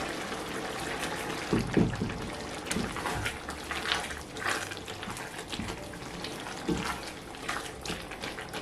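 Chicken and vegetable pie filling simmering in a pot and being stirred with a spoon. There is a steady wet bubbling hiss, with the spoon knocking and scraping the pot at irregular moments.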